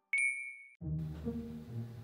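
A single high electronic ding, an edited-in sound effect lasting about half a second and cut off short. It is followed by faint low background noise.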